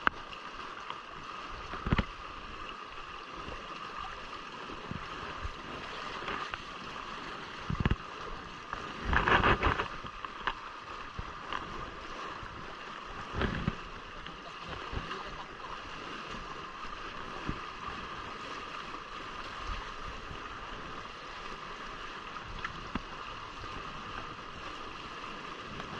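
Water gurgling and splashing steadily along the hulls of a Hobie Cat sailing catamaran under way, with a few sharp slaps or knocks, the loudest a brief cluster about nine to ten seconds in.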